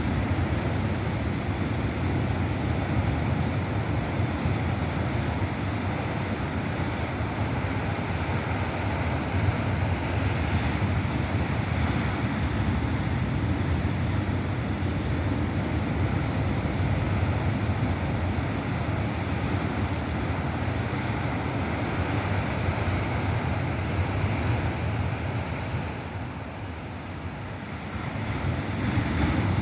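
Ocean surf: waves crashing and washing in a continuous rush, easing briefly near the end before the next wave swells up.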